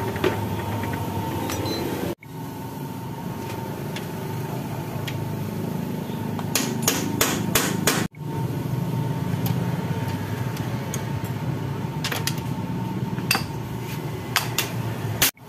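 Sharp metal-on-metal taps and clinks of hand tools working on a scooter's rear hub and drum-brake parts: a quick run of about six strikes around seven seconds in and a few more near the end. Under them runs a steady workshop hum.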